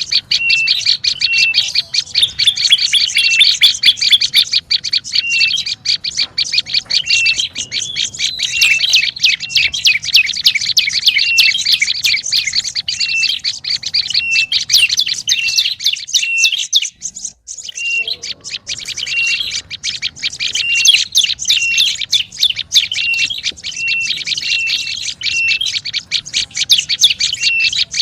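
Prenjak lumut bird calling in a busy, rapid chatter of chirps, with a short clear note recurring about once a second; the calling breaks off briefly about two-thirds of the way through. A lure call of the kind played to draw this bird in.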